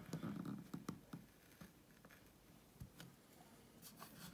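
Faint scraping of a hand-pushed carving gouge cutting into a wooden board along a drawn outline, mostly in the first second, followed by a few soft clicks and taps.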